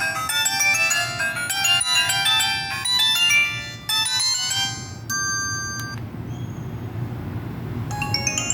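Q-Mobile ME114 mobile phone playing polyphonic ringtones: a fast, bright synthesized melody that stops about four and a half seconds in, a short steady beep about a second later, then the next ringtone's climbing notes starting near the end. A low hum runs underneath.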